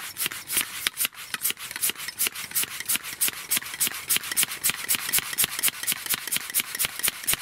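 A hand tool blowing air into a Yamaha 25 hp outboard's gearcase to push out the last of the gear oil makes fast, even rasping strokes, about seven a second.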